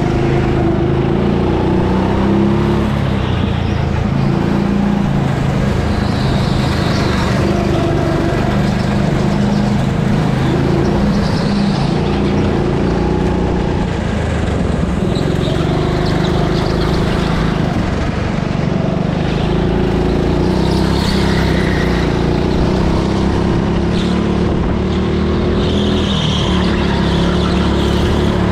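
Go-kart engine running under throttle, its pitch rising and falling as the kart accelerates and slows through the corners, with other karts' engines close by.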